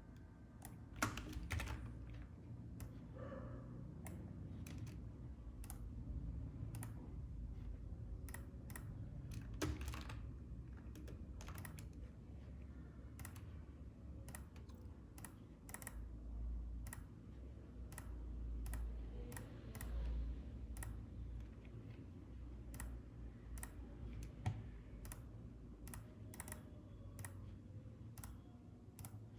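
Scattered, irregular clicks from a computer keyboard and mouse, about one or two a second, over a low steady hum.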